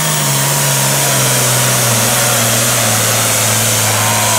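Super Farm class pulling tractor's engine running hard at high revs under load. Its pitch eases slightly just after the start, then holds steady.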